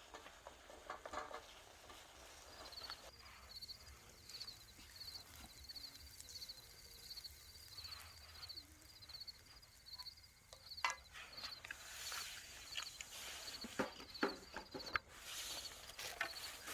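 Crickets chirping in short high pulses, a couple of chirps a second, with a few light clicks and knocks in the last several seconds.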